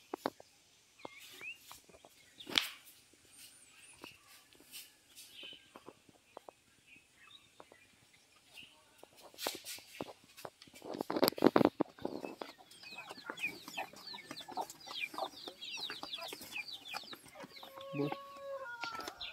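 Chickens clucking and small birds chirping in quick, repeated short calls, mostly in the second half, with a couple of held calls near the end. Scattered knocks come earlier, and a loud burst of scuffing noise comes a little past halfway.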